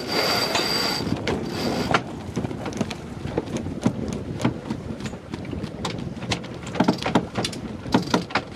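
A sailing yacht's cockpit under sail: a steady rush of wind and water, with scattered light clicks and knocks that come more often towards the end.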